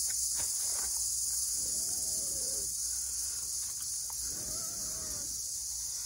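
A steady, high-pitched chorus of insects chirring in the jungle. Two drawn-out lower sounds of about a second each come through beneath it, about two seconds in and again near the end.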